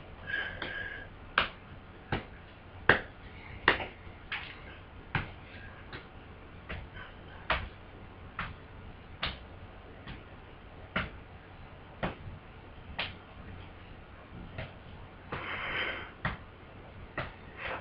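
A slow series of sharp ticks, roughly one every second, with a brief noise near the end.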